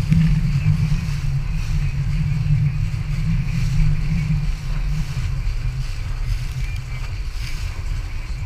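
Small inflatable boat under way at speed, its Nissan 9.8 hp four-stroke outboard running steadily, heard as a continuous low rumble mixed with wind on the microphone and water rushing past the hull.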